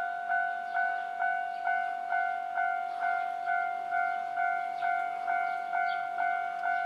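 Japanese level crossing warning bell ringing its repeated electronic ding, about two strikes a second: the crossing is active, warning that a tram is coming.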